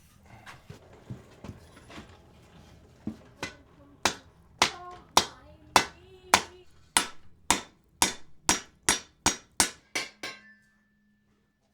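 Hammer blows on steel on an anvil during forging: a few light knocks, then a run of about a dozen sharp strikes with a short ring after some of them, coming faster toward the end and stopping about ten and a half seconds in.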